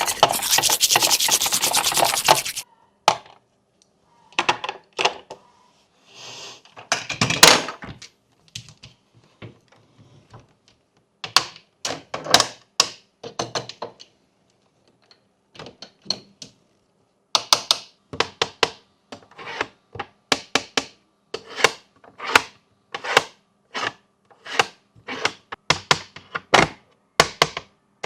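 Rasping rub for about two and a half seconds, then a long run of irregular sharp clicks and taps from fidget toys being handled, coming faster in the second half.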